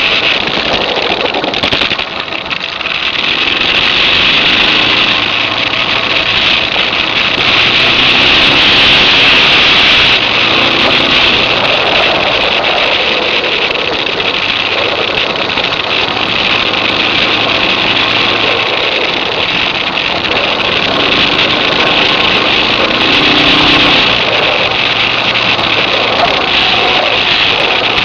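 Suzuki DR650's single-cylinder four-stroke engine running under way, its pitch rising and falling with the throttle and easing off briefly about two seconds in. A loud steady rush of wind and road noise lies over it.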